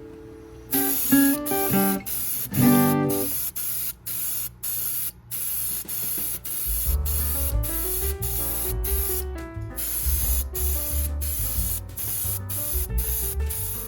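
Spray paint hissing in many short, rapid bursts, over background music of plucked acoustic guitar with a bass line coming in about halfway through.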